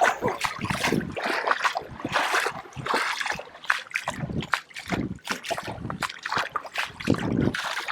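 Footsteps wading through shallow water, splashing unevenly about once a second.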